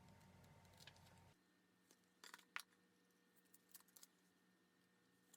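Near silence with a few faint, short clicks as thick oracle cards are handled.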